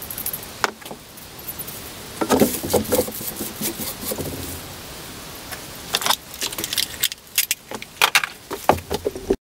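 Irregular metallic clinks, clatters and scrapes from a freshly drilled steel mounting plate being handled and its drill shavings cleared off. They come in small groups over a steady background hiss.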